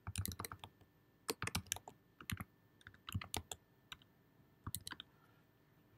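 Typing on a computer keyboard: short bursts of key clicks with pauses between them, stopping about five seconds in.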